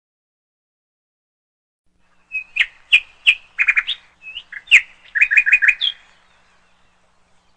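A bird chirping: a string of short, sharp chirps starting about two seconds in, with a quick run of four or five notes near the end, stopping about six seconds in.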